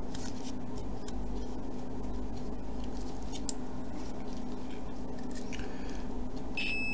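A steady low hum with a small click about halfway through. Near the end a digital multimeter's continuity buzzer gives a short, steady, high-pitched beep. It signals continuity across the contacts of the PIR sensor module's relay, which has just closed.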